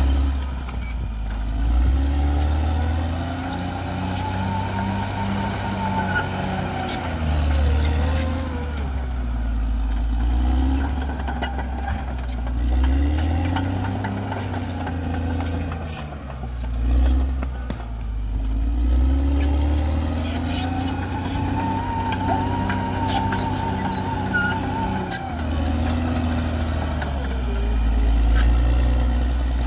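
CAT D6R XL bulldozer's diesel engine working under load, pulling down and recovering every few seconds as the dozer pushes earth. A whine rises and falls with it, in two similar cycles.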